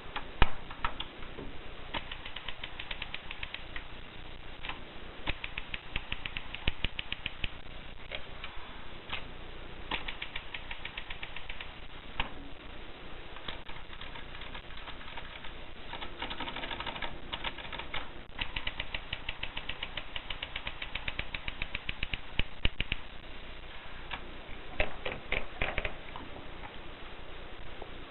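Olympia typewriter being typed on: keys clacking in quick runs of strokes with short pauses between them.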